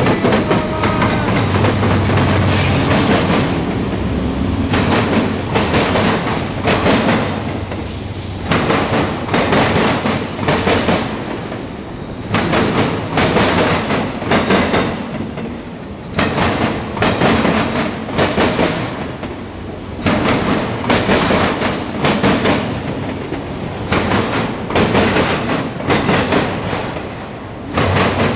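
Norfolk Southern freight train passing close by. In the first few seconds the engine of a mid-train GE AC44C6M diesel locomotive is heard running. After that, steel wheels of autorack cars clatter over the rail joints in a regular clickety-clack, coming in loud clusters every few seconds over a steady rolling rumble.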